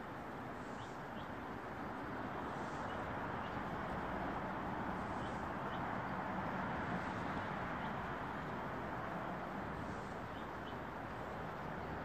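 Steady outdoor background noise that swells a little in the middle, with faint, short bird chirps scattered through it.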